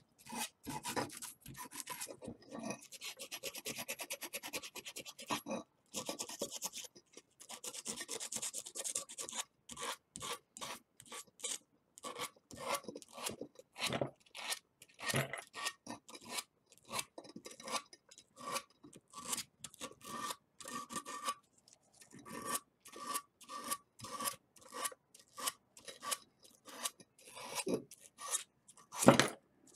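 Hand rubbing and scraping at a freshly brazed copper pipe joint to clean off hardened borax flux. Two longer spells of continuous rasping come a few seconds in, then many short, quick strokes.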